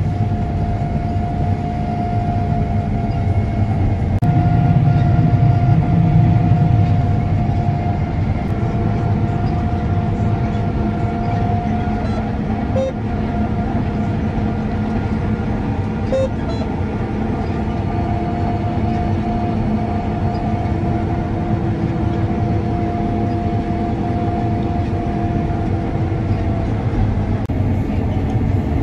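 Combine harvester running steadily while harvesting soybeans: a deep engine drone with a constant mid-pitched whine over it, swelling briefly a few seconds in.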